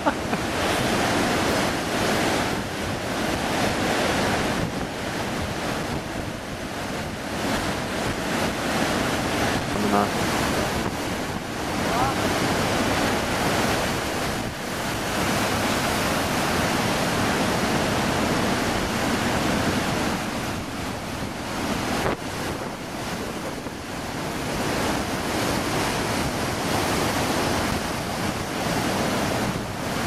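Heavy ocean surf breaking and rushing on the shore in a big swell, its loudness rising and falling wave by wave, with wind buffeting the microphone.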